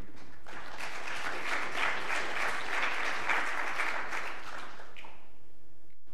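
Audience applauding. The clapping starts about half a second in and dies away near five seconds.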